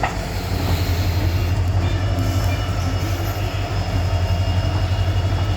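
Indian Railways electric train running past with a steady, loud low rumble and a fast, even flutter from the wheels and wagons.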